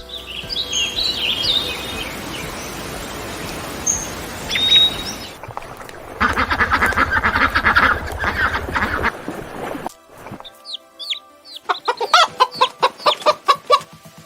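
Chickens clucking and small birds chirping, in several short separate takes: a noisy stretch with high chirps at first, a rapid run of repeated calls in the middle, then scattered chirps and quick calls near the end.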